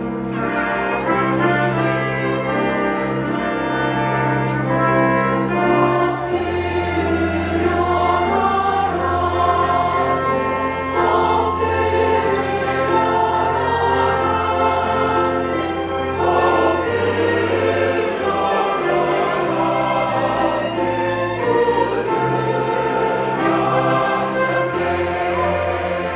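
Large mixed church choir singing a Christmas anthem in Korean, with orchestral accompaniment that includes trumpet and long held low bass notes.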